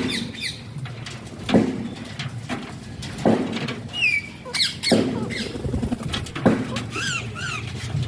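Parakeets squawking and chirping in short rising-and-falling calls, with a dull knock repeating about every second and a half.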